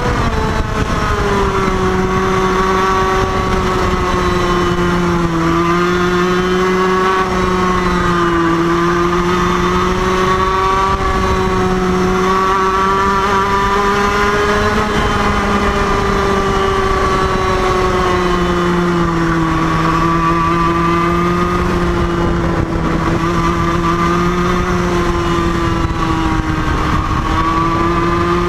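IAME KA100 100cc air-cooled two-stroke kart engine running at high revs, heard from an onboard camera on the kart. Its pitch holds high, dipping slightly a few times and climbing back as the driver lifts and gets back on the throttle.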